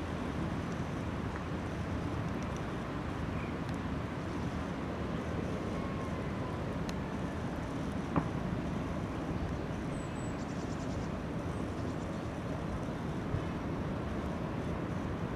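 The engine of a 15-inch-gauge 'Baby Deltic' miniature locomotive running steadily as it approaches slowly with its train, as a low rumble. A single sharp click comes about eight seconds in.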